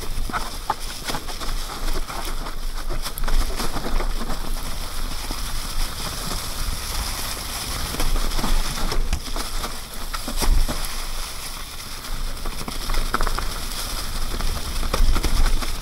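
Mountain bike tyres rolling and crackling through dry fallen leaves on a downhill trail, with many small clicks and knocks as the bike rattles over the ground. A steady low rumble of wind on the microphone runs underneath.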